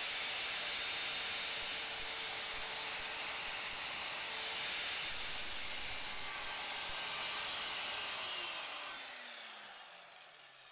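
Evolution R185SMS sliding mitre saw running with its blade cutting through a soft pine floorboard: a steady motor whine over the noise of the cut. About eight seconds in the saw is switched off and the motor winds down, its pitch falling away.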